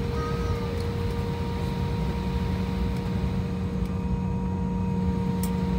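Cabin noise inside an Embraer 170 airliner taxiing: a steady low rumble with an even hum from the aircraft's engines and systems, and a few faint ticks.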